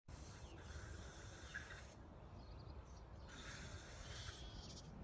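Faint outdoor background noise: a steady low rumble with two hissing stretches, the first nearly two seconds long and the second about a second long near the middle.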